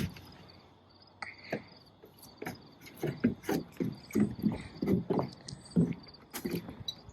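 Insects, likely crickets, trilling steadily, under a series of irregular knocks and handling thumps.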